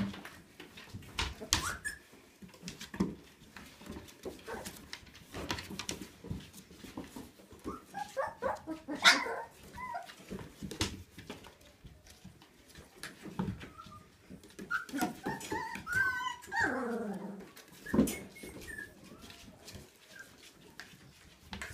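22-day-old Siberian husky puppies whimpering and squealing in wavering high calls, in two spells near the middle and later on, over scattered clicks and knocks of small paws and claws on a wooden floor.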